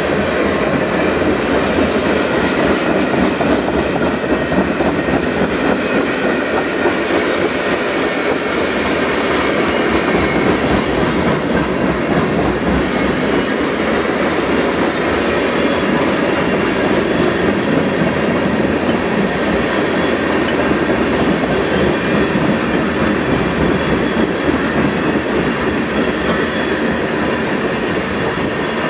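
Freight train tank cars rolling past, their steel wheels running on the rails in a loud, steady, unbroken noise, with faint high steady tones above it.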